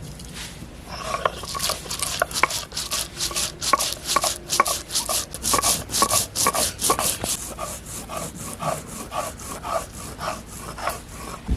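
Garlic, ginger, coriander and cumin being ground on a flat grinding stone (shil-pata) with a stone roller: a steady back-and-forth rubbing, about three strokes a second, starting about a second in.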